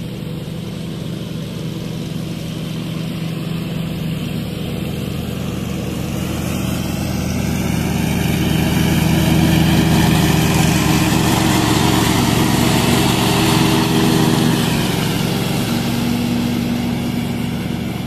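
Cub Cadet XT2 QR106 riding mower's Kawasaki 726 cc V-twin engine running steadily as the mower drives past, growing louder to about ten seconds in, then fading as it moves away.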